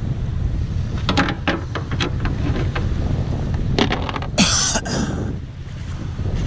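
Wind buffeting the microphone in a steady low rumble, with a handful of knocks and clanks from hands working at the boat's stern and outboard, and a short hissing rush about four and a half seconds in.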